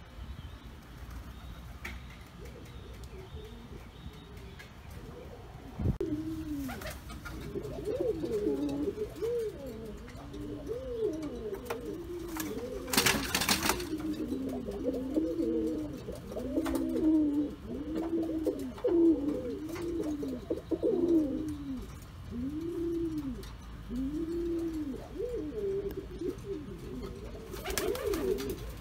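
Domestic pouter pigeon (buchón) cooing: a long run of rising-and-falling coos, about one a second, starting some six seconds in. A short burst of noise breaks in near the middle.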